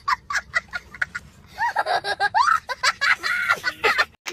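A young child laughing hard: quick repeated bursts of laughter at first, then longer, high-pitched squealing laughs. The sound cuts off suddenly near the end.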